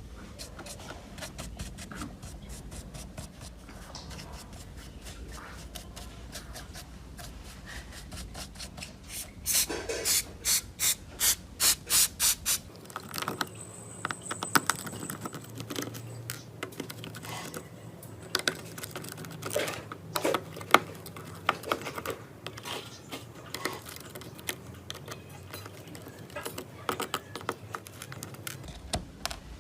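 Small hand tools working on a phone, giving scattered clicks and scraping. About a third of the way in comes a run of about eight loud, evenly spaced rubbing strokes.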